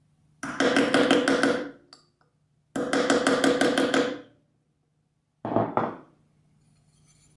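Small hammer tapping the inside of an aluminum carburetor float bowl to flatten its gasket seat so it will stop leaking: two quick runs of taps, each about a second and a half long. A couple of shorter knocks follow later.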